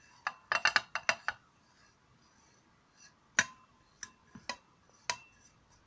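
The upturned ceramic lid of a soup tureen knocking and clinking against the tureen's rim as ground harmala seed is tipped and brushed off it into the tureen. A quick run of taps comes in the first second and a half, then a few single clicks spaced out.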